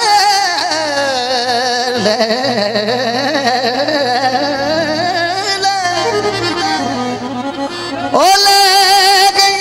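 Live Punjabi folk-style singing: a male singer holds long wordless vowel notes, bending and wavering through ornaments, over keyboard accompaniment. A long high note is held steady near the end.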